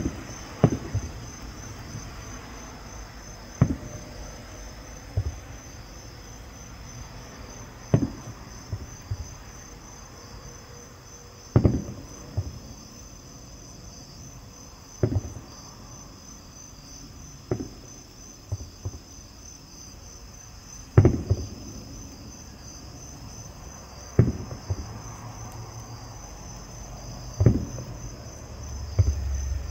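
Distant fireworks shells bursting, a dull boom every few seconds with a short rumble after each, over a steady, high-pitched pulsing chorus of night insects.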